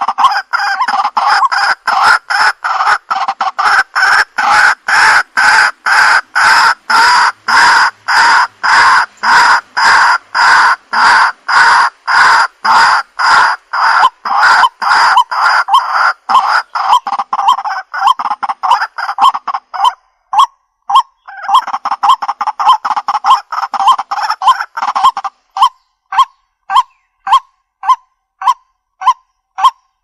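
White-breasted waterhen calling: a long, even run of short, loud call notes, about three a second, over a steady high tone. After about twenty seconds the notes come slower and more clipped, about one and a half a second, and the high tone drops out near the end.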